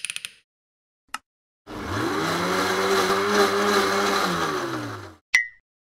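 Kitchen blender switched on with a click. Its motor spins up with a rising whir, runs steadily for about three and a half seconds, and winds down with a falling pitch. A brief ringing tick follows just after it stops.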